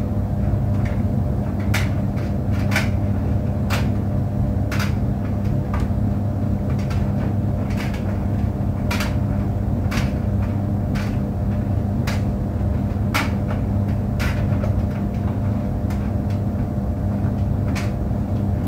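Clothes tumble dryer running with a steady low hum, and irregular light knocks every second or two as the load tumbles in the drum.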